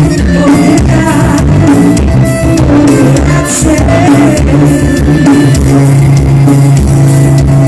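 Forró music with singing, a heavy bass line and drums, played very loud through a car sound system.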